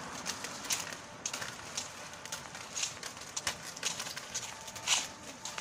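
Roller skate wheels crackling over a rough concrete path, with soft knocks about twice a second.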